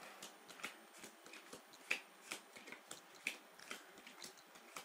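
Playing cards being dealt one at a time from a deck onto a pile: faint, irregular flicks and slaps of card on card, two or three a second.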